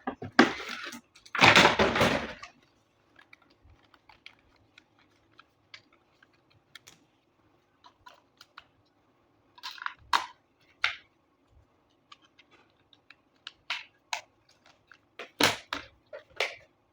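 Scattered light clicks and taps of hands handling plastic toy parts, with a short noisy rustle about two seconds in and a few louder clicks near the end.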